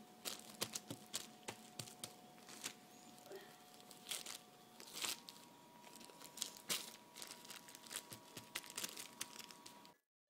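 Thin plastic sheet crinkling and crackling under the hands as soft clay is pressed onto it and the plastic is handled, in irregular sharp crackles. The sound stops abruptly near the end.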